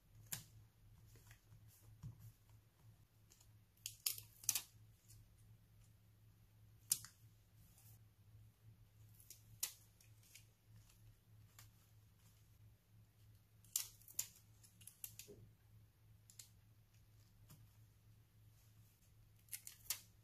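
Tweezers and fingertips tapping and pressing stickers onto a scrapbook page: scattered sharp clicks and light taps, some in quick pairs. A low steady hum sits underneath.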